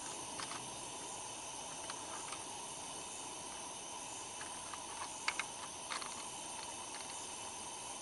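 Faint steady night-time background hiss with thin high steady tones, broken by a few soft clicks as a catfish is handled on a hand-held fish scale, the loudest a quick pair a little after five seconds in.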